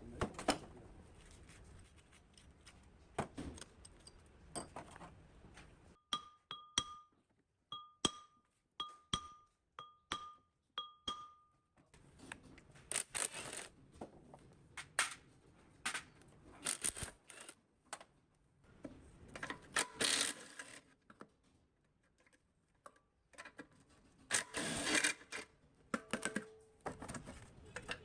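Metal parts and hand tools knocking and clinking, with a run of about seven short ringing metal pings a little way in, like a metal part being tapped.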